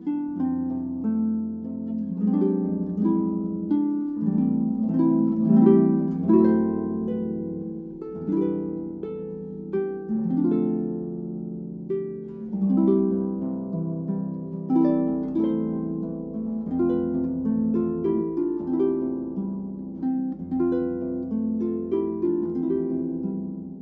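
Background instrumental music: a tune of plucked, harp-like notes over held low bass notes.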